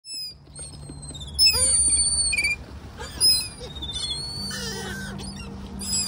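Gulls and crows calling over one another: many short, overlapping high calls, some falling in pitch, loudest about one and a half and three seconds in.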